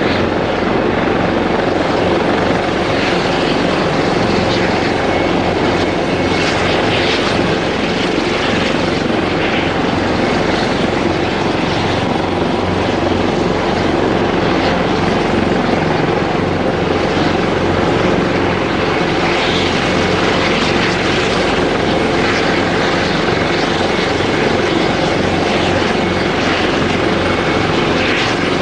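Airbus EC225LP Super Puma twin-turbine helicopter running steadily, its rotor beat pulsing fast and even under the loud turbine noise.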